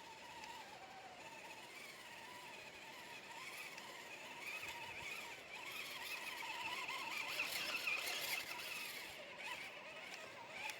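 Radio-controlled scale crawler's electric motor and drivetrain whining as it crawls, the pitch wavering up and down with the throttle and growing louder past the middle.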